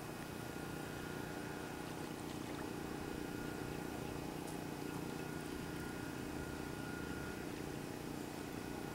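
Steady low mechanical hum from a distant engine, unchanging throughout, with a faint high steady tone above it.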